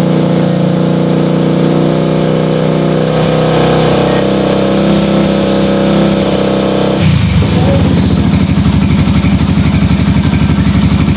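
Fuel-injected motorcycle engine running steadily. About seven seconds in its note changes to a harder, rapid, even pulsing.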